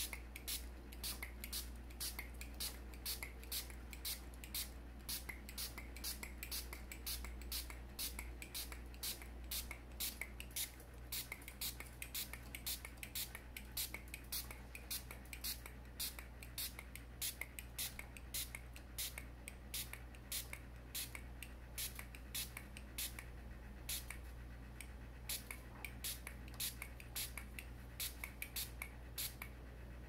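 Small hand-held spray bottle squirting over and over, about two to three short hissing sprays a second, misting the birds, over a steady low hum.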